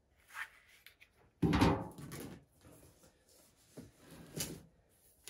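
A large cardboard box handled on a table: a faint rustle, then one loud thump about one and a half seconds in, followed by softer taps and rubbing of hands on the box.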